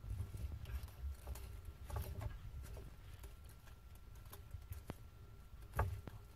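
Bearded dragon biting and chewing broccoli: an irregular string of soft crunches and clicks, loudest about two seconds in and near the end.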